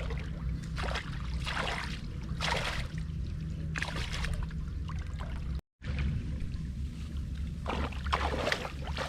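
Water splashing in several short bursts, about five in all, over a steady low rumble, with a brief dropout in the sound a little past halfway.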